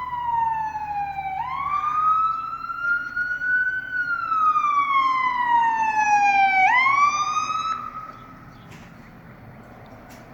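Emergency vehicle siren on a slow wail: the pitch falls, swoops back up about a second in, glides slowly down again, and swoops up once more near seven seconds before fading out.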